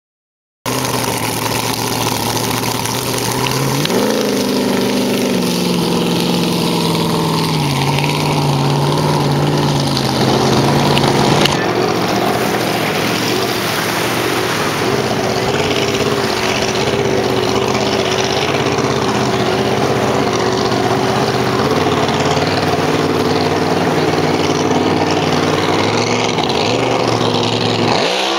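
Supercharged alcohol-burning engine of a drag hydroplane running out on the water. Its pitch climbs about four seconds in, drops back in steps, and from about eleven seconds on holds a steady, higher note as the boat runs a pass.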